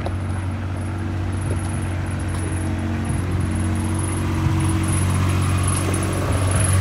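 A motor runs with a steady, low, even hum that grows slowly louder.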